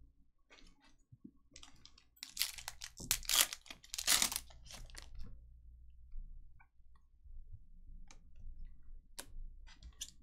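Crinkling and tearing of a foil trading-card pack wrapper as it is opened, loudest from about two to five seconds in, with light clicks of cards being handled.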